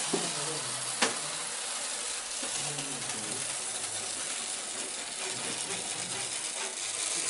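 1950s French Hornby O gauge 20-volt electric locomotive hauling tinplate coaches round three-rail tinplate track, its motor and gears whirring and its wheels rattling over the rails in a steady clatter. It is running on about 16 volts from an old Triang controller, below its rated 20 volts. A single sharp click comes about a second in.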